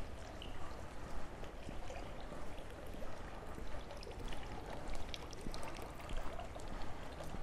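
Footsteps at a walking pace, about two a second, over a steady rushing background noise.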